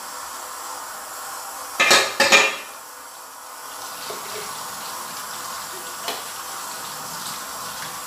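Kitchen tap running steadily into the sink as an aluminium pot lid is rinsed by hand. About two seconds in, a short loud clatter of aluminium cookware as the pan is set down, with a few light knocks of the lid against the sink later.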